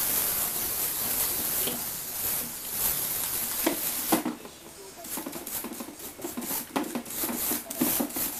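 Small Lego Technic two-wheeled toy rolling and spinning on a wooden floor: a steady hiss for about the first four seconds, then irregular plastic clicks and knocks as it tips onto its side.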